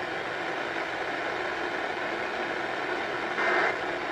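Steady hiss of a weather-radio broadcast between messages. Near the end comes one short, buzzy data burst, the first of the Emergency Alert System end-of-message tones that close a warning.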